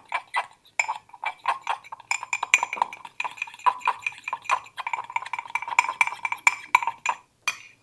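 A utensil stirring melted butter and flour into a paste in a small bowl, clinking quickly and steadily against its sides, about four or five clinks a second, with the bowl ringing after each one.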